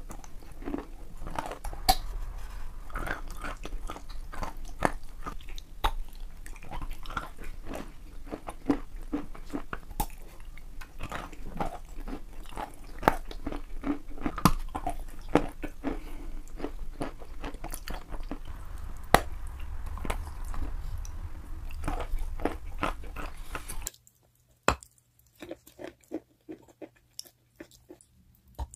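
Close-up chewing and biting of chalk: crisp crunches mixed with wetter chewing as pieces of paste-coated chalk are bitten off and ground between the teeth, over a low hum. About 24 seconds in, the background hum drops away and the crunches come sparser and separate.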